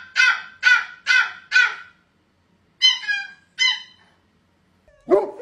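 Puppy giving a quick run of short yips, each falling in pitch, about two a second. After a pause come two higher, thinner cries and then a louder yelp near the end.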